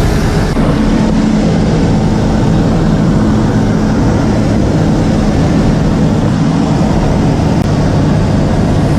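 Light propeller airplane's engine and propeller running with a steady, even drone.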